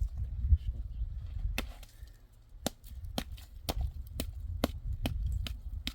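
A run of sharp, crisp snaps or clicks, about two a second, starting about a second and a half in, over a low wind-like rumble.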